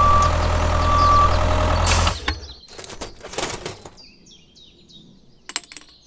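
Heavy vehicle engine running with a low rumble and two long electronic beeps, cutting off about two seconds in. A few knocks follow, then a run of short bird chirps near the end.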